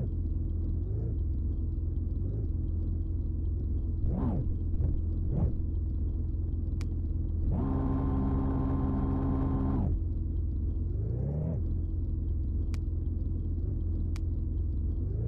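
Heavy-vehicle engine rumble running steadily, with several short rising revs and a held engine tone of about two seconds near the middle.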